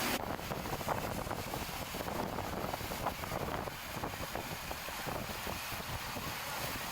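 Wind buffeting the microphone over a steady low rumble of boats and lapping water.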